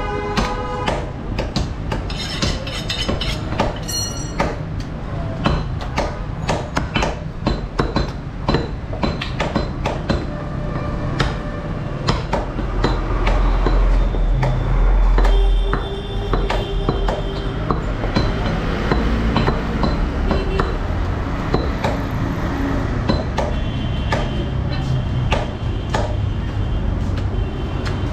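Steel cleavers chopping beef on wooden log chopping blocks: rapid, irregular knocks throughout. A low rumble swells for a few seconds around the middle.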